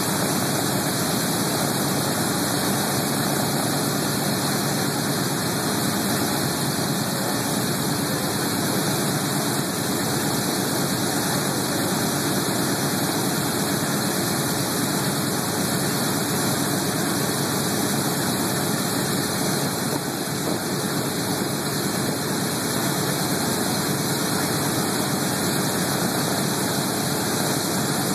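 Boeing B-17 Flying Fortress's Wright Cyclone nine-cylinder radial engines idling steadily on the ground, a constant loud drone with propellers turning.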